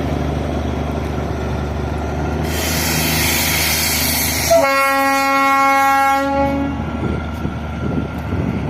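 Darjeeling Himalayan Railway toy train rumbling steadily. About two and a half seconds in comes a loud hiss lasting about two seconds. Then the train's horn sounds once for about two seconds.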